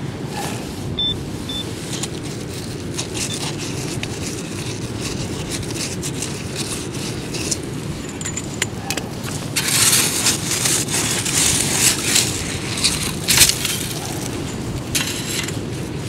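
Wind buffeting the microphone, with a gloved hand and pinpointer scraping and crunching through wet shingle and sand in a dig hole, the crunching loudest and busiest in the second half. A short high electronic beep sounds about a second in.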